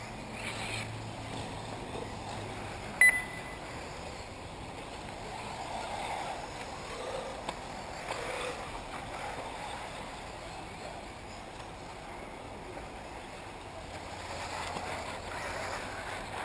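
Steady outdoor noise of 1/8-scale electric off-road buggies running on a dirt track, with a single short, high beep about three seconds in.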